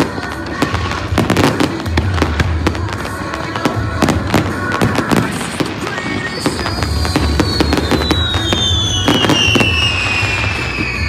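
Fireworks display: rapid bangs and crackling shell bursts, with music and a steady low beat underneath. From about halfway through, a long high whistle slowly falls in pitch.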